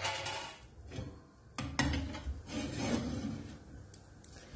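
Shallow frying pan with a flatbread in it being slid across the metal grate of a gas hob, scraping and rubbing, with two sharp clicks about a second and a half in.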